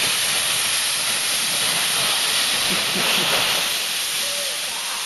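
Aluminum canoe hull sliding over snow: a steady hiss that swells a little midway, with faint voices of the riders.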